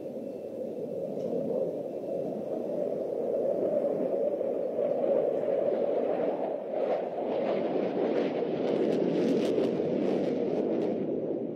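Jet engine of a JF-17 Thunder Block II fighter, its single Klimov RD-93 turbofan, rumbling in flight and growing louder. A ragged crackle comes in from about halfway and stops just before the end.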